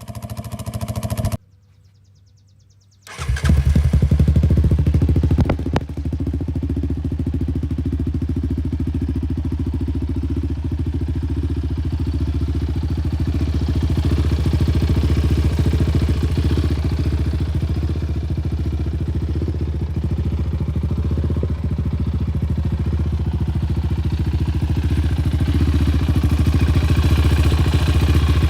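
Yamaha Raptor 700's single-cylinder engine idling through a Barker's dual exhaust. A brief silence about a second in cuts between clips, and the engine then runs steadily, a little louder for the first couple of seconds.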